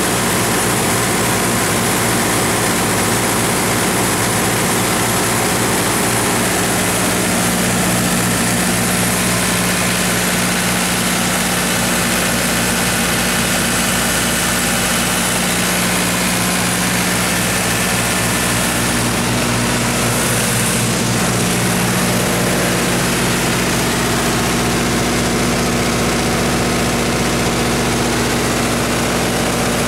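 Cummins 4BT3.3-G6 four-cylinder turbocharged diesel engine of a 35 kW standby generator set running steadily at constant speed, an even engine drone with no speech over it.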